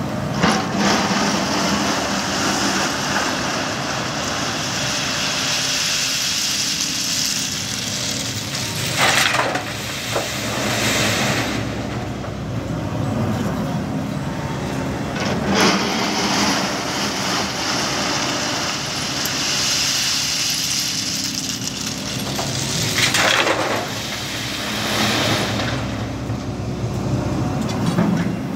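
SANY crawler excavator's diesel engine and hydraulics running steadily as it works loose railway ballast stone, with two loud rattling crashes of stone, about 9 and 23 seconds in.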